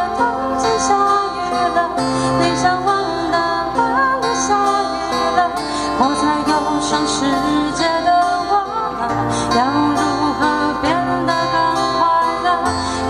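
Live acoustic pop music: a woman singing into a microphone over two strummed acoustic guitars, with a sustained low note underneath.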